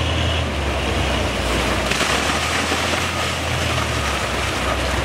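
Doosan wheel loader's diesel engine running steadily as the machine moves with a raised bucket, with a rush of louder noise from about two seconds in lasting a second or so.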